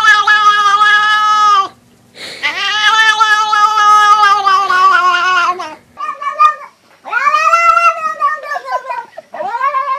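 Domestic cats making long, drawn-out weird meows: two long calls of about two and three seconds, then three shorter ones.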